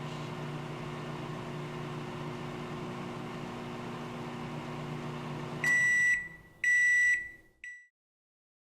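Microwave oven running with a steady hum, then its beeper sounding at the end of the cycle: two beeps about a second apart and a short third one.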